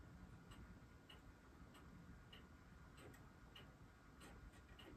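Near silence: quiet room tone with faint, regular ticking, about three ticks every two seconds.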